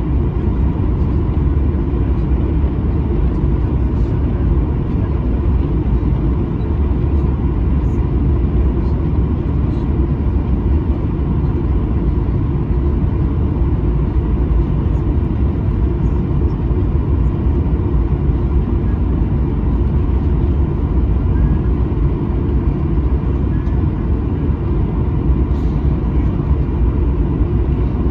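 Inside the cabin of a Boeing 737-900ER on the taxi: the CFM56-7B turbofans at idle thrust give a steady low rumble with a faint steady whine.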